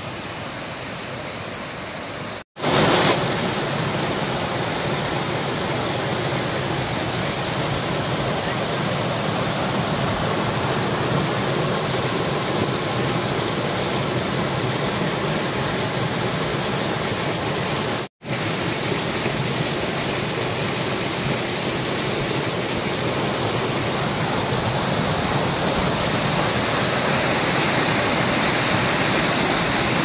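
Waterfall cascading over rocks: a steady, loud rush of water, cut off by two brief drop-outs, one about two seconds in and one just past halfway, and louder after the first break.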